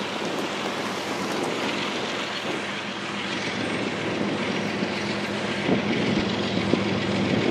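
Double-stack container well cars of a freight train rolling past: a steady rumble of steel wheels on rail with scattered knocks, more frequent near the end.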